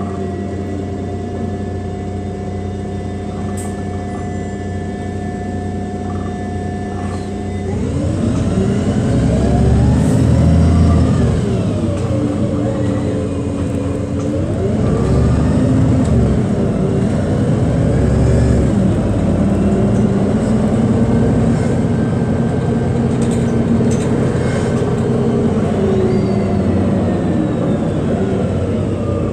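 City bus engine and drivetrain heard from inside the passenger cabin: a steady pitched hum for the first several seconds, then from about eight seconds in the engine note rises and falls several times as the bus accelerates through its gears.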